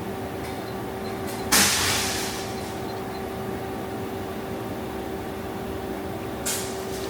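Powered-up CNC turning center humming steadily with two fixed tones. It is broken by a sudden loud hiss about a second and a half in that trails off over about a second, and a shorter hiss near the end.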